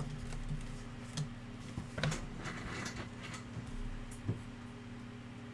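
Trading cards and a plastic card holder being handled on a table: a few soft clicks and rustles, the sharpest about two seconds in and just after four seconds, over a steady low electrical hum.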